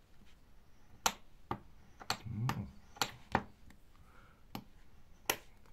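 Thin 0.1 mm copper sheet clicking against a steel block as fingertips press and smooth it flat: about eight sharp, irregularly spaced clicks, the loudest about a second in.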